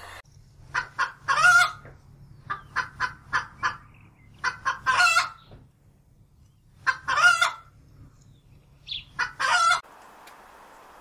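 Chicken calling in five bursts of short clucks, most bursts ending in a longer drawn-out squawk, as in a hen's cackle. A quieter hiss follows for the last second or so.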